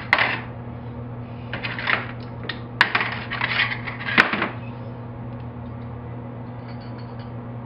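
Hand tools and small metal parts clicking and clattering against an aluminium parts tray, a few sharp clicks and short rattles in the first half. A steady low hum runs underneath.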